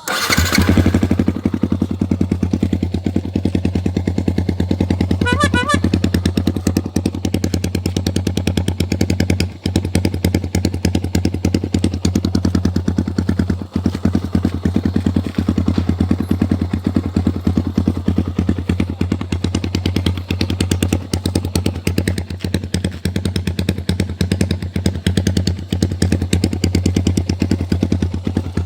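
Yamaha R15's single-cylinder engine running steadily through an aftermarket Akrapovič exhaust pipe: a loud, even, rapid exhaust note that holds one pitch, with two brief dips about ten and fourteen seconds in.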